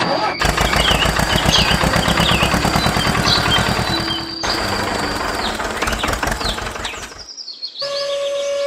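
A small engine running with a rapid, even chugging beat, with birds chirping over it; it stops abruptly near the end, and music with steady tones comes in.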